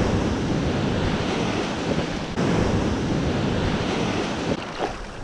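Small surf washing up on a sandy beach, with wind buffeting the microphone as a heavy low rumble.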